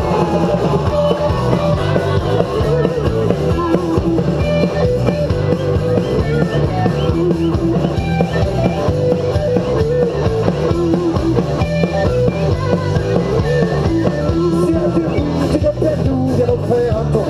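A live band playing amplified upbeat music with accordion, electric guitar and drums, and voices singing.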